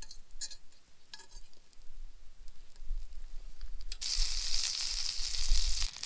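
Butter melting in a hot cast-iron skillet: a few light clicks of a metal fork against the pan, then from about two-thirds through a loud, steady sizzle as the butter foams.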